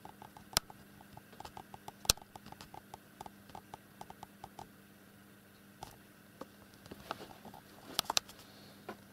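Cats tussling inside a wire cage: a run of light taps and scratches from paws and claws on the cage floor and bars, with a few sharp clicks, over a faint steady hum.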